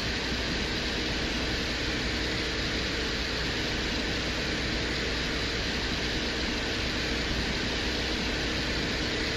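Steady hum under an even hiss, unchanging throughout, presented as the microphone recording made by the Soviet Venera-14 lander as it descended to the surface of Venus.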